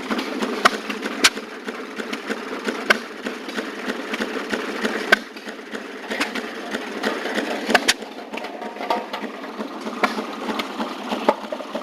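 Small two-stroke gasoline engine of an antique Maytag washing machine running steadily, with sharp mechanical clicks at uneven intervals from the machine.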